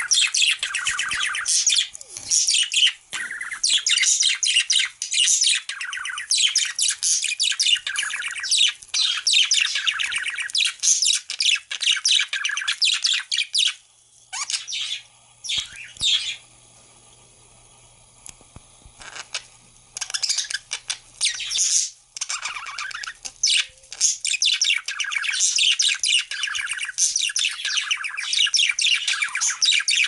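Budgerigars warbling and chirping in fast, dense chatter. It thins to a few single calls for several seconds around the middle, then comes back.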